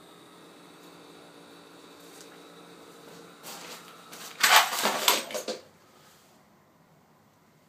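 Faint steady electrical hum with a few thin tones from the newly fitted HID headlight on an Aprilia SR50 scooter, just switched on. About three and a half seconds in comes a loud burst of clattering knocks lasting about two seconds.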